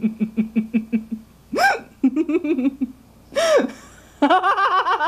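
High, voice-like comic noises: a rapid stuttering run of pulses, then whoops that rise and fall in pitch, with fast, high-pitched laughing chatter near the end.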